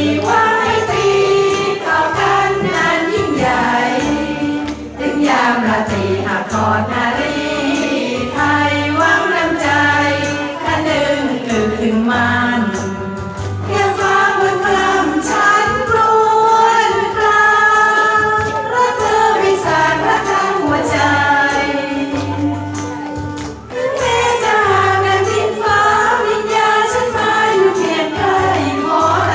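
A woman singing a Thai song into a handheld microphone through a PA, over an amplified backing track with a repeating bass line.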